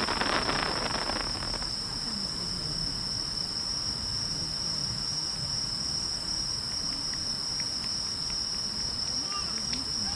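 Steady, high-pitched chirring of insects, with a dense burst of crackling in the first second and a half from a firework's crackling stars.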